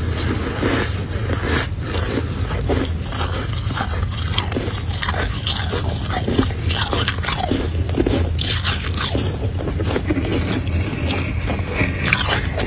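Freezer frost being scraped with a spoon and crunched while eaten: a dense, irregular run of scrapes and crunches over a steady low hum.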